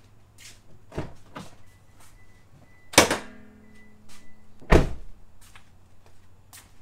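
Door and latch clunks from a 2004 Toyota Prius: a light click about a second in, then a loud metallic clunk with brief ringing about three seconds in as the hood release is pulled and the hood pops up onto its safety catch. At about five seconds the driver's door shuts with a heavy thud.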